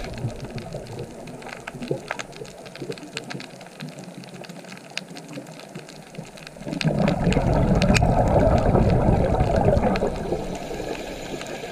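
Underwater ambience with scattered clicks and crackles. About seven seconds in, a loud bubbling rumble comes in and lasts about four seconds before fading.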